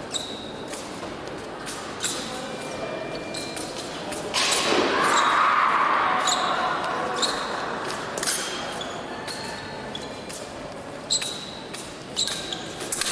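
Fencing bout: épée blades striking each other with sharp clicks, several leaving a short high metallic ring, among thuds of footwork on the piste. A louder noisy stretch runs from about four to seven seconds in.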